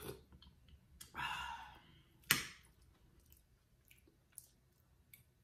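A person eating with a spoon: a slurp about a second in, then a sharp click of cutlery and faint chewing and small clicks.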